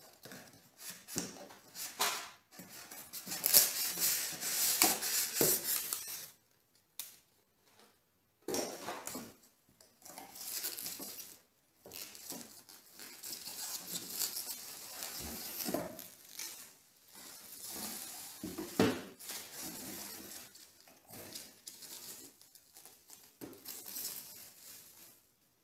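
Plastic wrapping and styrofoam packing rustling and crinkling in irregular bursts while an espresso machine is unpacked, with light metallic clinks from the steel portafilter and filter baskets.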